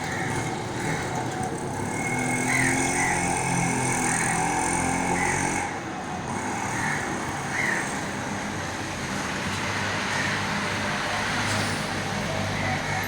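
Road traffic noise, with a vehicle engine's hum loudest from about two to six seconds in.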